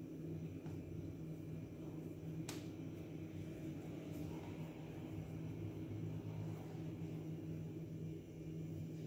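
Steady low mechanical hum, like a kitchen appliance or fan running, with a single faint click about two and a half seconds in.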